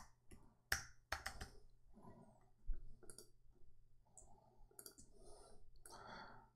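Faint, scattered clicks of computer keys and a mouse being pressed, a dozen or so short separate clicks.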